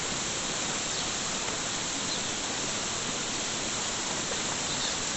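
A steady, even rushing noise with no separate events.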